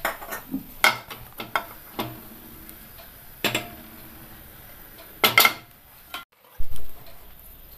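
Scattered clinks and knocks of a frying pan on a gas stove's metal grate, with the loudest clatter about five seconds in as the pan is set back on the burner, and a dull thump near the end.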